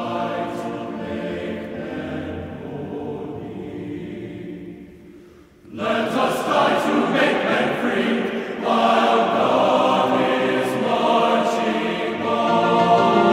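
Background choral music: a choir singing held chords, fading out about five seconds in and coming back louder a moment later.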